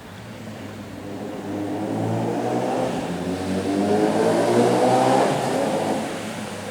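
A motor vehicle's engine passing close by, growing louder to a peak about five seconds in and then fading away.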